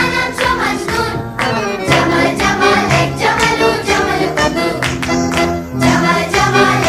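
Background music with sung vocals over held bass notes.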